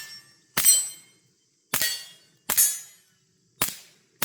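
Suppressed .22 LR pistol shots from a Taurus TX22 fitted with a Dead Air Mask suppressor: four sharp cracks about a second apart, each with a short ringing tail, which the shooter calls really quiet.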